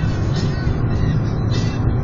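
Steady road and wind noise of a car driving along a highway, heard from inside the cabin, with a strong low rumble.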